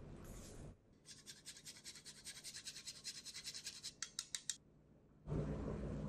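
Hand spice grinder being turned over the bowl: a fast, even run of dry clicks lasting about three and a half seconds, with a few louder clicks near the end.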